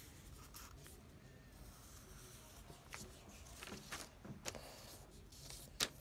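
Faint scratching of a Sharpie marker's felt tip drawing strokes on lined paper, in short scattered strokes, with one sharp tap near the end.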